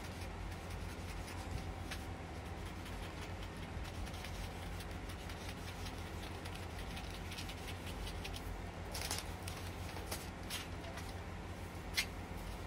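Scissors cutting through brown pattern paper: a run of faint snips with the paper rustling, a few louder crinkles of paper late on and one sharp click just before the end, over a steady low hum.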